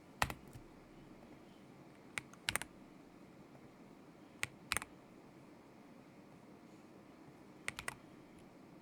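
Keystrokes on a KZZI K75 Pro mechanical keyboard with Moment linear switches: four short clusters of quick clacks, each a few keys, with pauses of about two seconds between them.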